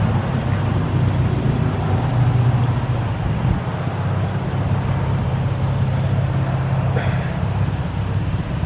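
A car's engine running steadily with a low drone.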